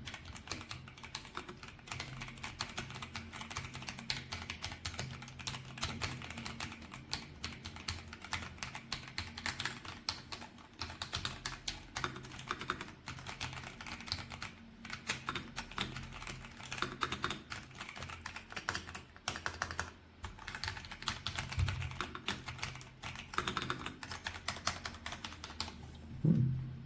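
Typing on an ASUS ROG Azoth 75% mechanical keyboard with ROG NX switches: a fast, steady clatter of keystrokes with a few short pauses, stopping shortly before the end.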